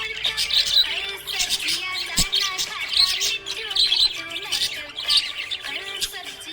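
Budgerigars chirping and chattering, with clusters of high, rapid chirps coming about once a second over a wavering lower warble.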